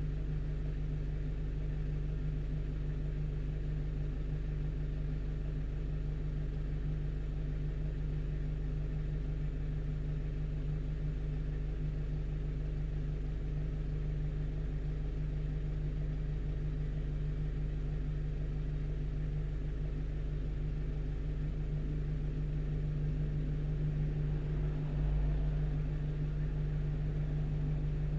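One-ton truck's engine running with a steady low hum, with a brief low thud about 25 seconds in.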